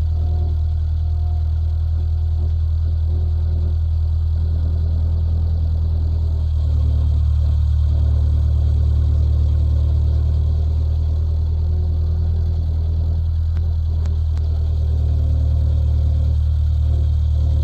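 An engine running steadily with a low, even hum, pulling a little harder from about six and a half seconds in, with a few faint knocks later on.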